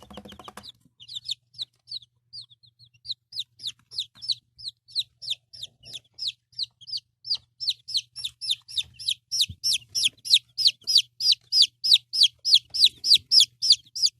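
A chick peeping loudly: a long run of short, high, falling peeps, slow at first, then faster and louder over the second half. The owner puts the peeping down to the chick having too little room in its box.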